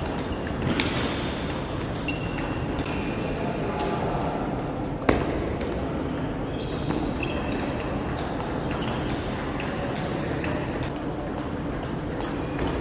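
Table tennis rally: the ball clicking back and forth off the rackets and table, echoing in a large sports hall, with one sharper, louder hit about five seconds in.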